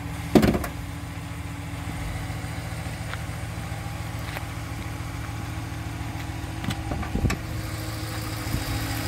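2018 Ram Tradesman's 5.7-litre Hemi V8 idling steadily, running smoothly with no odd noises. A sharp knock about half a second in, and a couple of lighter knocks later on.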